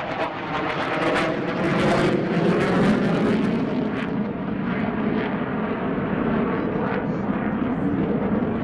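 Jet noise of a JASDF F-15J fighter's twin F100 afterburning turbofans as it passes. A crackling roar builds and peaks about two to three seconds in, then eases into a lower, steady rumble as the sharp, crackling top end dies away.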